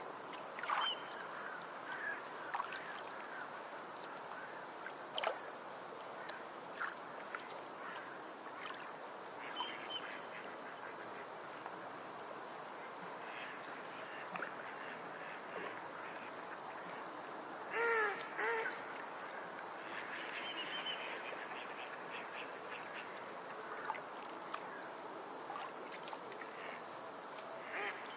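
Beach ambience: a steady wash of surf noise with scattered bird chirps, and a louder bird call given twice about two-thirds of the way in.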